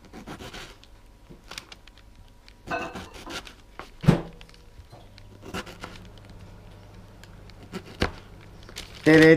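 Kitchen knife slicing through a tomato on a cutting board: scattered soft cuts and taps of the blade meeting the board, one firmer knock about four seconds in. A man's voice starts right at the end.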